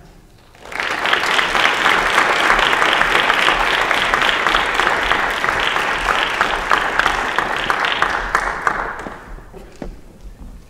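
Audience applauding, starting just under a second in and dying away about nine seconds in.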